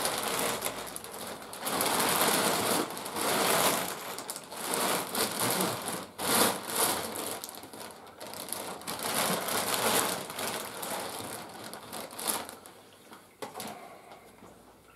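Large clear plastic bag rustling and crinkling as it is handled and pulled down, in uneven bursts that die down near the end.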